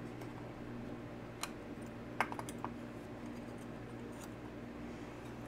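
A few small, sharp clicks of steel folding-knife parts being handled and fitted together by hand, the lock bar and spring being seated against the stop pin; the loudest is a short cluster of clicks about two seconds in. A faint steady hum lies underneath.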